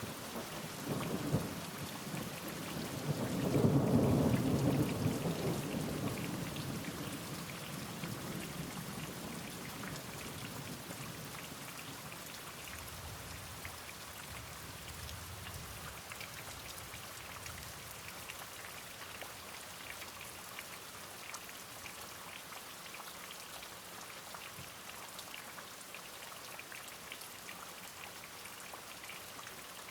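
Steady rain falling, with a roll of thunder that starts about a second in, is loudest a few seconds later, and rumbles away over several seconds.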